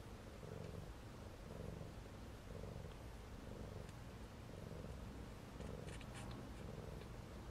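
Cat purring steadily while nursing kittens, the purr swelling and easing about once a second with each breath. There are a few faint short clicks about six seconds in.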